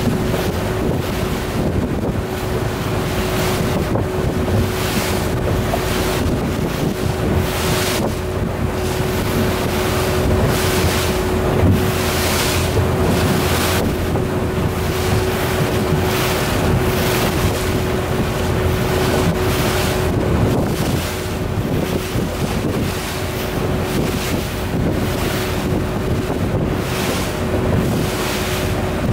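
Wind buffeting the microphone and choppy water splashing around a small boat under way. Underneath is a steady motor hum with an unchanging tone.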